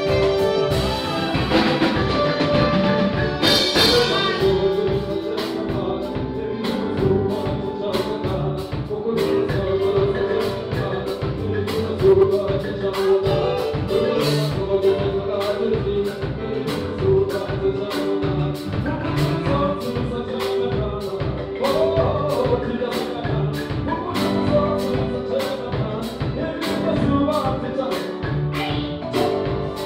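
Live band playing a song: marimba, drum kit, electric bass and guitar, with a male singer on microphone, over a steady beat.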